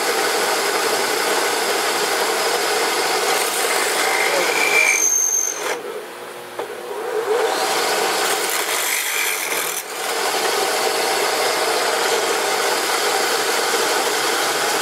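Drill press boring a hole through metal: a steady scraping, grinding drilling noise that drops off for a few seconds midway and then picks up again.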